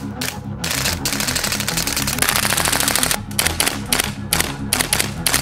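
Gas blowback airsoft rifle in HK416 style firing. A few quick shots lead into a full-auto burst of about two and a half seconds, then a string of rapid single shots.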